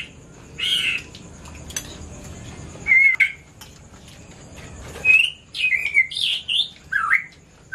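A bird giving short chirps and squawks, several spaced a second or two apart, with a quick run of them about five to six seconds in.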